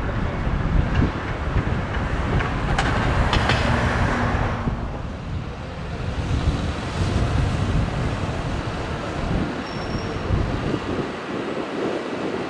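Electric train running on the rails, with a cluster of sharp wheel clicks and hiss about three to four seconds in, then a steady low rumble.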